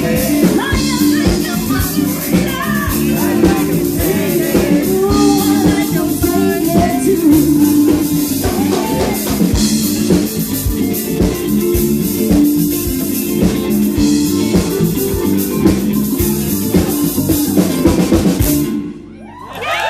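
Rock band playing with drum kit, guitar and a singer. The music stops abruptly near the end as the song finishes.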